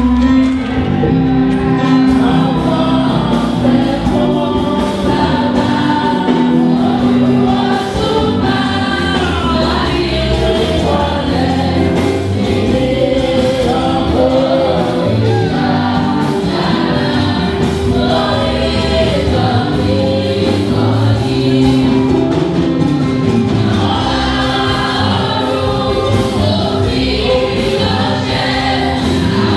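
Choir singing a gospel hymn over sustained instrumental backing.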